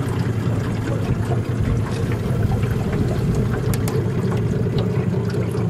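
Motorboat engine running steadily under way, with water noise around the hull.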